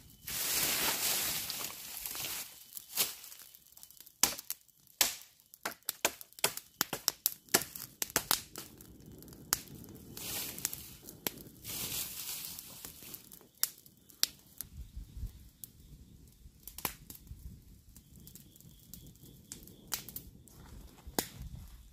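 Campfire of dry twigs and grass catching and burning, with many sharp, irregular crackles and pops that come thickest a few seconds in. Stretches of rushing noise come at the start and again around halfway.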